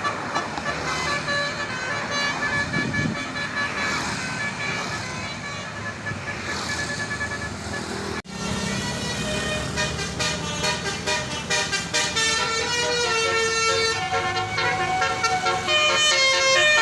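Bus musical air horn of the Basuri 'telolet' type playing a tune of stepping notes, getting louder toward the end. This follows a cut about halfway through. Before the cut, street noise carries faint horn tones and voices.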